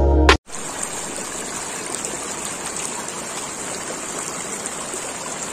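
A shallow stream of water running over stones, a steady rushing that starts abruptly about half a second in, just after a snatch of background music.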